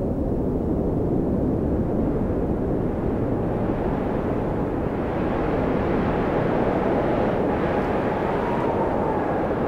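Wind blowing steadily: a low rushing with a faint whistle that slowly rises and falls in pitch, growing brighter in the middle.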